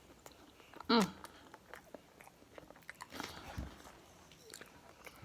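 Close-miked eating of chicken wings: faint biting and chewing with small wet clicks. A short hummed "mm" comes about a second in.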